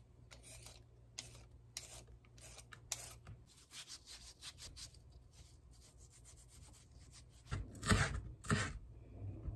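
Cucumber being rubbed with salt, a run of short gritty rubbing strokes. Near the end come a few louder knife strokes on a wooden cutting board as the cucumber is sliced.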